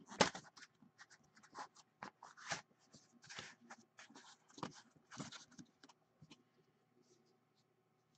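Cardboard packaging scraping and rustling in short strokes as a tight-fitting black insert is worked out of an Upper Deck The Cup hockey card box. The loudest scrape comes right at the start, and the sounds die away in the last second or two.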